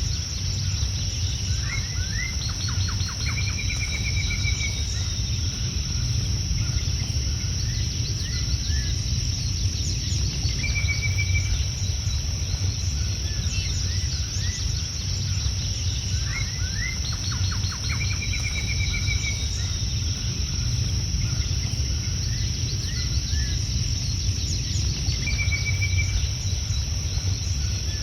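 Birds calling and chirping, with short chirps and a brief trill, over a steady high insect chorus and a low rumble. The same sequence of calls repeats about every 14 seconds.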